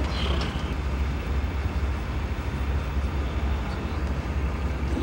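Steady low rumble and hiss of a control room's background noise, with a few faint clicks.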